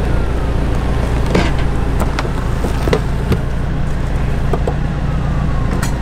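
Backhoe engine running steadily under load, with a few scattered knocks and clanks.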